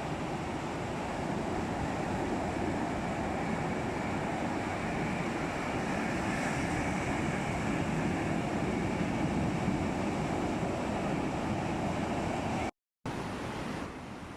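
Sea surf washing steadily, mixed with wind noise on the microphone, cut by a brief dropout to silence near the end.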